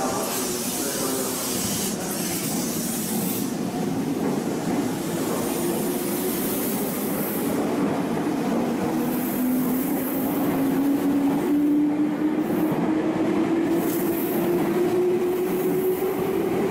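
Meitetsu 1200 series Panorama Super electric train pulling out of the platform. It gives a whine that climbs slowly in pitch as it gathers speed, over a steady running rumble.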